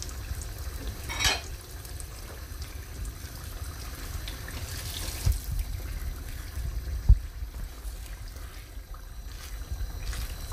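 Chopped tomatoes tipped from a bowl into a pan of tomato stew, then stirred through with a wooden spatula, over a low steady rumble. There are a few dull knocks, the sharpest about seven seconds in.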